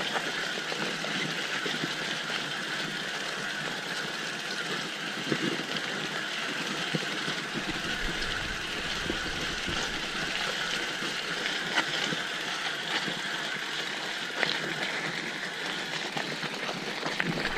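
Mountain bike rolling fast downhill on a dirt trail: a steady rush of tyres on dirt and the bike's ticking, with sharp knocks and rattles over bumps and a low rumble that comes in about halfway through.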